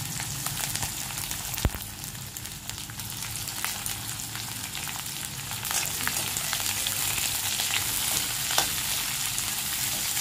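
Freshly washed sliced onions sizzling and spattering in hot oil in a metal kadhai: the water on them makes the oil spit a lot. A metal slotted spatula stirs and scrapes them through the pan, and there is one sharp click a couple of seconds in.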